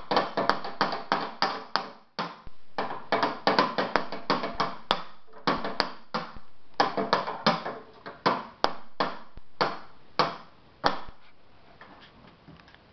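A toddler drumming with a stick on wooden boxes: fast runs of knocking strikes broken by brief pauses, thinning out to a few lighter hits near the end.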